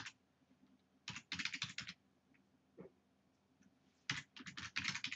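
Computer keyboard typing in two quick runs of keystrokes, one about a second in and one near the end, with a quiet pause between.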